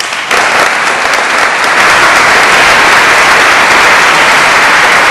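Audience applauding, the clapping growing louder a moment in and then holding steady.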